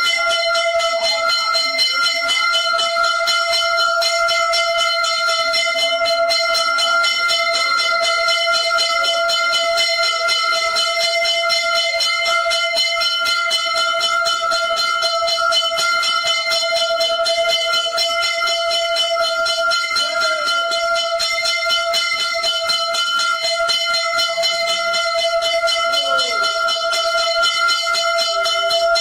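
Temple bells ringing rapidly and without pause during aarti: one steady ringing pitch over a fast, even clatter of strokes.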